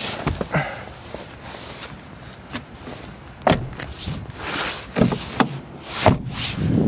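Driver's door of a 2003 Mercedes-Benz E320 being worked and shut, giving a series of knocks and clicks from the door and its handle. The heaviest thumps come about halfway through and again near the end.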